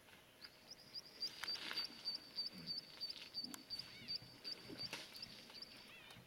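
A high, thin animal call repeated about four times a second for around five seconds, with a few short chirps mixed in.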